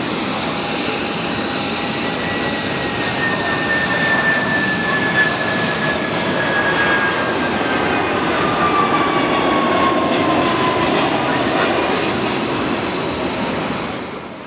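An Airbus A300-600ST Beluga's two General Electric CF6-80C2 turbofan engines at climb power just after takeoff, passing close: a steady jet rumble with a whine that falls slowly in pitch as the aircraft goes by. The sound fades out near the end.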